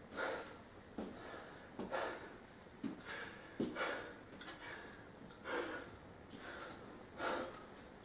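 A man breathing hard, with loud puffs about once a second, as he recovers his breath after a high-intensity interval.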